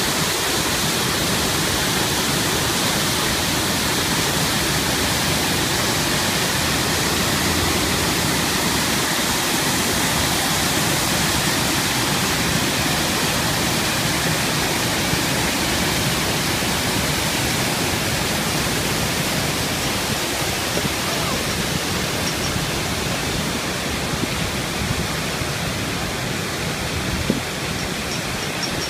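Waterfall of the Big Sioux River in full flow, brown water pouring over rock ledges in a steady, even rush of sound.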